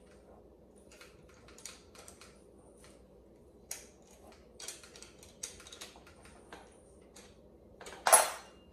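Small clicks and light rustles of small plastic parts and hardware being handled while an electric lawn mower is assembled, with one louder, brief handling noise near the end.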